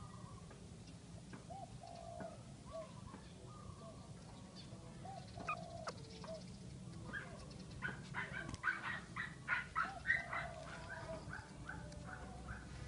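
Dog whimpering: short, soft, rising-and-falling whines through the first half, then a quicker, louder run of whines from about two-thirds of the way in.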